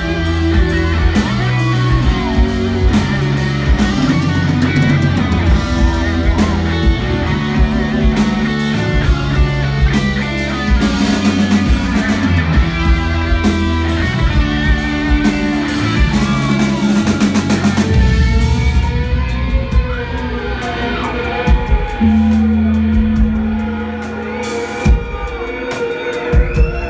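Live rock band playing electric guitars over bass and drums. About eighteen seconds in the music thins to a sparser passage, with sliding guitar lines over a held low note.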